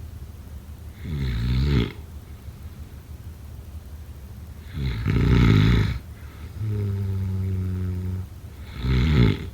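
A person snoring: three loud snores about four seconds apart, with a steady pitched, humming out-breath between the second and third.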